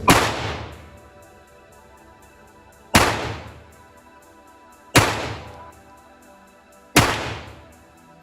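Four single shots from a Walther P22 .22 LR pistol, spaced about two to three seconds apart, each followed by a short echo that dies away.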